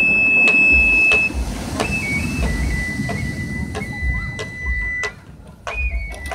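Voladores' ritual flute and small drum: the flute holds long, high, steady notes that step between a few pitches, over sharp drum strikes about every half second. The sound drops out briefly near the end.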